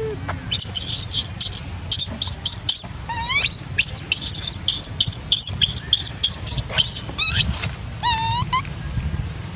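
Baby long-tailed macaque screaming in a rapid string of shrill squeals, about three a second. Near the end it breaks into a few lower, wavering whimpers. It is a weaning cry: the baby is begging to nurse from a mother with no milk.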